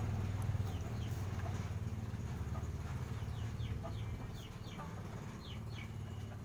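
Chickens in a pen calling with many short, high, falling chirps over a steady low hum.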